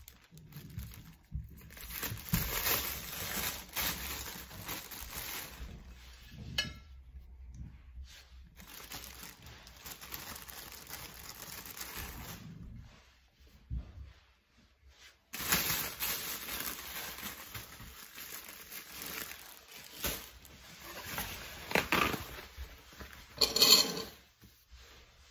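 Plastic bread bag crinkling and rustling in irregular spells while slices of wholemeal bread are taken out, with a couple of short pauses.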